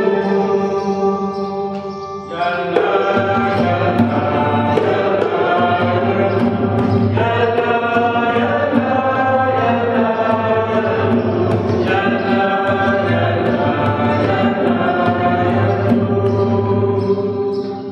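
Church choir singing a hymn in long held notes, with instrumental accompaniment, including a deep bass layer, filling in about two and a half seconds in.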